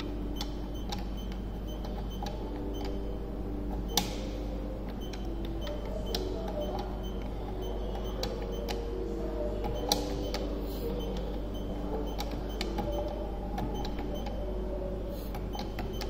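Scattered light clicks of buttons being pressed and handled on a control panel, with two sharper clicks about four and ten seconds in, over a steady low hum.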